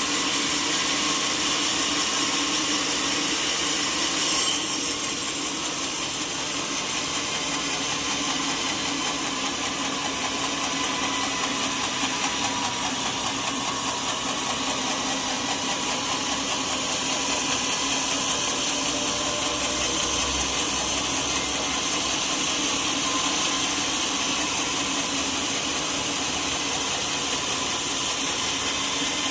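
Sawmill saw cutting teak wood, a steady grinding machine noise with a brief louder burst about four seconds in.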